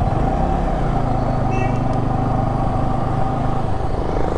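Motorcycle running steadily on the road: a continuous engine hum over road noise.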